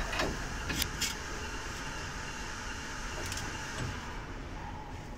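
Socket wrench being worked on a bolt of an aluminium busbar clamp connector: a few scattered clicks and light knocks from the wrench and metalwork while the bolt is tightened hard, over a steady background hiss.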